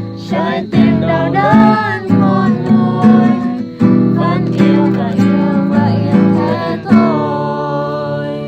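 A song played on strummed acoustic guitar, with a singing voice over it.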